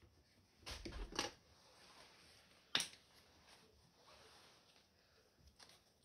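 Faint kitchen handling noises while food is being served: a quick cluster of light taps about a second in and one sharp click near the middle, with low room tone otherwise.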